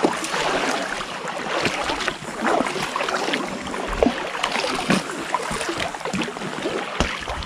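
Double-bladed kayak paddles dipping and pulling through calm sea water, with irregular drips and small splashes from the blades.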